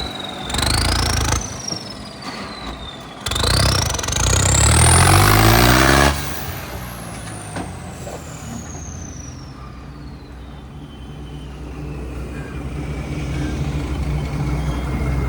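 Tractor engine revved in bursts. A high whine rises with the revs, and after the engine drops back sharply about six seconds in, it winds down slowly over several seconds.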